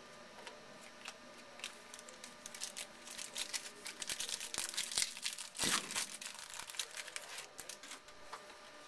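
Foil wrapper of a 2011 Panini Certified Football card pack crinkling and tearing as it is opened by hand: a run of small crackles, with a louder crackle a little past the middle.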